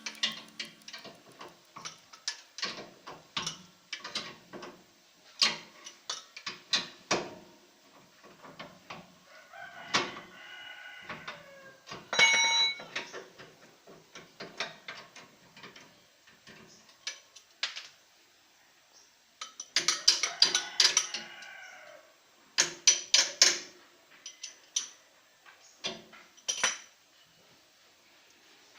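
Metal tools and parts clinking and knocking irregularly during repair work on the engine, with chickens clucking in the background about ten and twenty seconds in.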